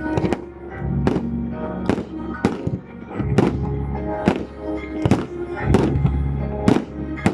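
Music playing with sharp bangs about once a second, from the fireworks display's bursts going off over it.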